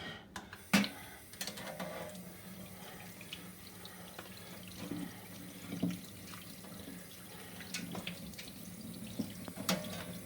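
Kitchen tap running steadily into a sink as raw chicken is rinsed under it, with scattered small knocks and clatters. A sharp knock about a second in is the loudest sound.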